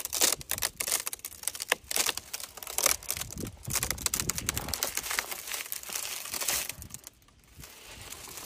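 Frozen, ice-coated cloth flag crackling and crunching as it is handled and swings, a dense run of sharp crackles. The crackling drops away briefly about seven seconds in, then picks up again.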